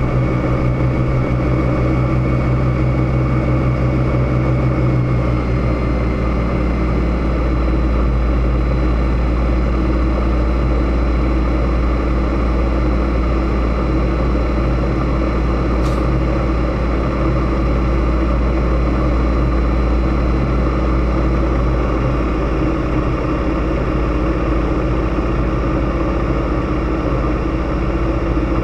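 Zlín Z-37A Čmelák's nine-cylinder Walter radial engine and propeller running at steady power in flight, heard from inside the open-windowed cockpit. The engine note drops slightly about five seconds in.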